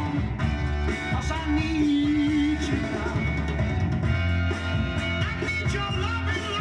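A song playing from a Decca 7-inch vinyl single on a turntable, with a steady beat and strong bass.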